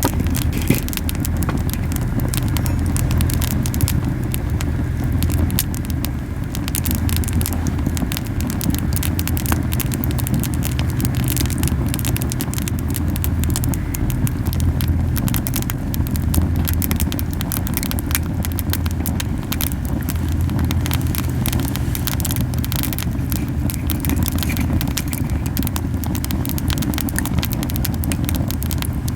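Camellia-wood campfire burning hard: a steady low flame rumble, strong because the fire is very hot, with frequent sharp pops and crackles throughout.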